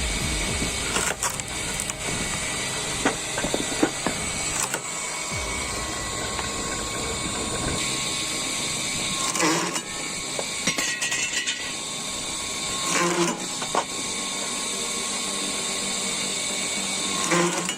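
Firewood-splitting machine running steadily, with scattered clicks early on and three short, sharp sounds about four seconds apart in the second half.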